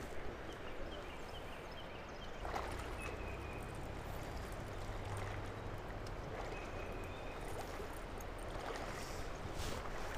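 Steady rush of a spring-fed trout stream flowing around a wading angler, with a low rumble underneath. A couple of small knocks from handling the fly line and rod, one about two and a half seconds in and one near the end.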